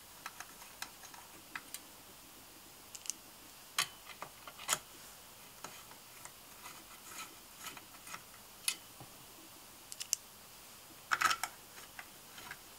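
Small, irregular metal clicks and taps as bolts are dropped into an RC petrol engine's clutch case and started by hand with a hex driver, with a short cluster of clicks near the end.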